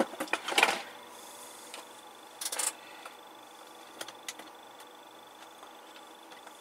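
Off-camera handling of tools on a workbench while looking for a meter: a cluster of small clicks and a rustle at the start, a brief scrape about two and a half seconds in and a single click about four seconds in, with quiet room tone between.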